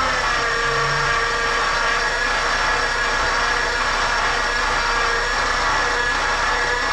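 2009 Honda Civic 1.8 four-cylinder engine idling just after a start, with a steady high whine over the engine note. The whine's pitch falls a little as the idle settles in the first moment, then holds. The owner first took the whine for the power steering pump and believes it is a failing bearing inside the alternator.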